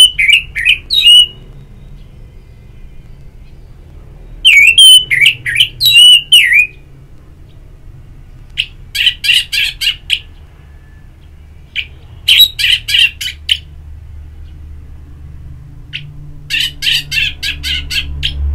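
Orange-headed thrush singing: short, rapid warbled phrases of high notes, one about every four seconds, five in all.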